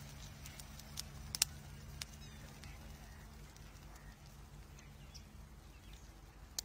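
Electric arc at a loose rail bond cable on an electrified railway track: a low steady electrical hum with sharp snaps about a second in, twice around a second and a half, at two seconds, and once near the end. The arcing is caused by traction return current jumping a loose bond-cable fitting.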